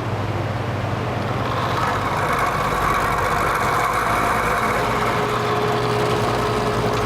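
Vintage Penncrest (Lakewood) metal box fan running with a steady motor hum and a rattle that swells louder about a second and a half in. The rattle comes from the motor, which the owner puts down to a worn rear thrust washer.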